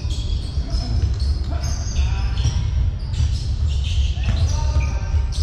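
Live basketball play in a sports hall: the ball bouncing on the court amid many short, high-pitched sneaker squeaks, with players' voices calling out.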